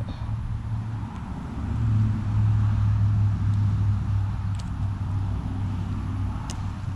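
A motor running with a steady low hum, swelling for a second or two about two seconds in.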